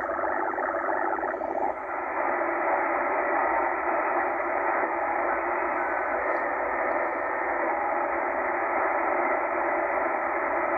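Tecsun H-501X shortwave receiver's speaker in upper sideband giving a steady band of noisy signal and static while it is tuned up through the 13.9 MHz utility band, starting on a signal described as extremely bizarre. There is a brief dip in loudness about two seconds in.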